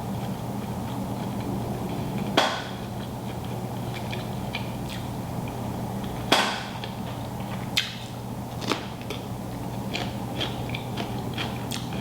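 Eating sounds from a seafood boil: a few sharp clicks and cracks and many small ticks of shells and utensils, over a steady low electrical hum.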